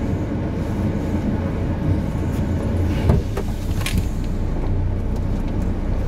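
Heavy road traffic passing close by: the steady low rumble of truck engines as a dump truck drives past, with a knock about three seconds in and a sharp clack about a second later.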